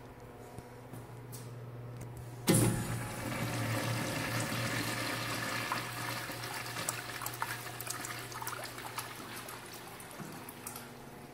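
Manual flushometer valve on a wall-hung urinal flushing. It starts suddenly with a sharp hit about two and a half seconds in, then water rushes through the bowl for about seven seconds, slowly dying away.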